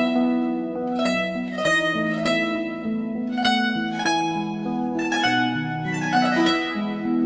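Background music of plucked strings playing a gentle melody, a new note about every half second.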